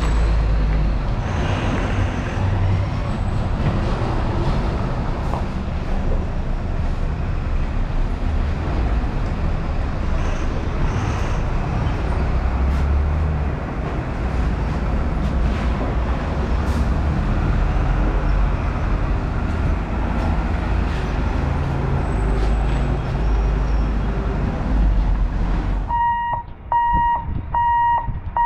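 Road traffic waiting at a closed railway level crossing: truck engines running with a steady low rumble and traffic noise. About 26 seconds in it cuts to a repeating electronic beep, about two a second.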